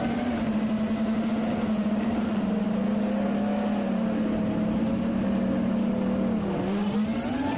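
Beagle Drone FPV quadcopter's motors humming in flight, heard from the camera mounted on the drone. The pitch wavers with the throttle, dips briefly about six and a half seconds in, then climbs again near the end.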